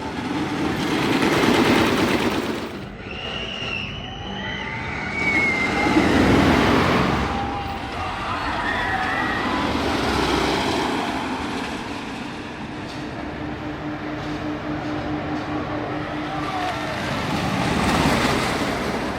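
Wooden roller coaster train running along its track, a rumbling, rattling ride noise with wind rushing past that swells and falls several times, with some high-pitched squeals or cries a few seconds in.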